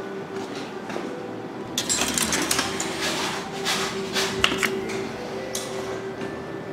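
Station automatic ticket gate clicking and rattling as a paper ticket is fed through and a person walks through, a run of sharp clicks from about two seconds in to about four and a half, over a steady hum.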